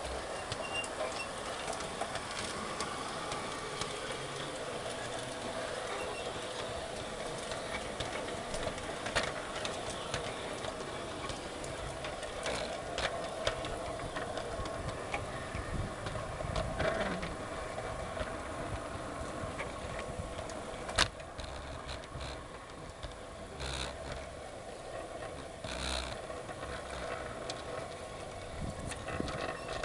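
Garden-scale model train running on LGB track, heard from on board: a steady motor and gear hum, with the wheels clicking now and then over rail joints.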